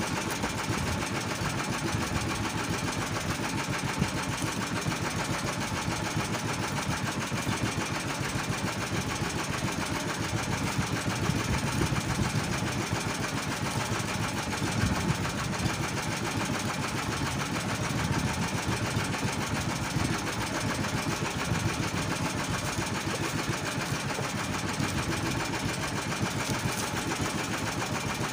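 Small gasoline boat engine running steadily at a low, even idle, a rapid unbroken chugging.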